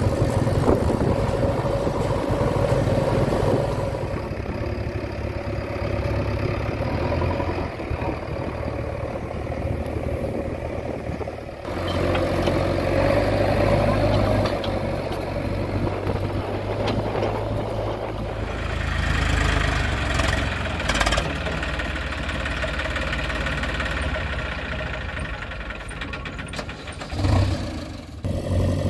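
Diesel engines of a JCB 3DX backhoe loader and farm tractors running and working. The engine sound changes abruptly several times, with a short louder burst near the end.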